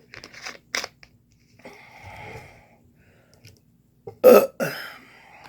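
A person burps loudly once, about four seconds in, with a short strong burst and a rougher tail: a burp brought up by gulped Coca-Cola. Softer mouth clicks come just before it.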